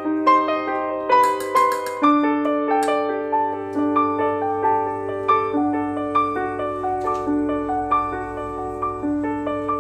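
Background piano music: a slow, gentle melody of single notes over soft sustained chords.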